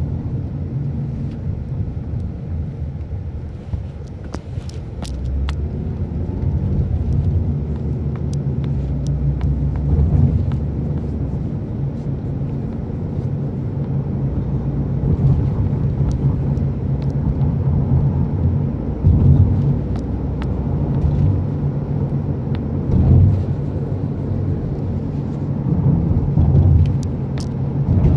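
Road and engine noise of a moving taxi, heard from inside the cabin: a steady low rumble that swells and eases somewhat as the car drives.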